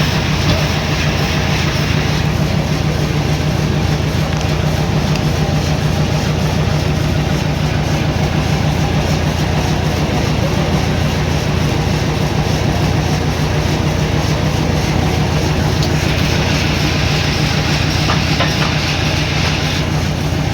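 Sawmill machinery running steadily: a loud, continuous low hum with a fast, even rattle, and a brighter hissing layer at the start and again near the end.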